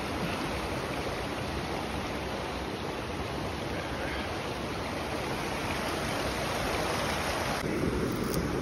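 Mountain creek flowing over rocks: a steady wash of running water, with a few faint clicks near the end.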